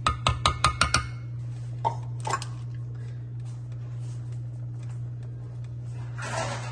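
A wooden spoon knocked six times in quick succession on the rim of an electric pressure cooker's stainless steel inner pot, each knock ringing briefly, with two softer knocks about two seconds in. A short burst of noise comes near the end over a steady low hum.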